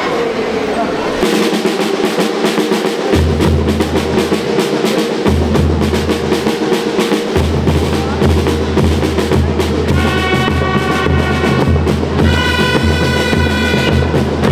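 School rhythm band playing: snare drum rolls start about a second in, with deep bass drum beats joining soon after. Bell lyres come in with ringing melody notes near the end.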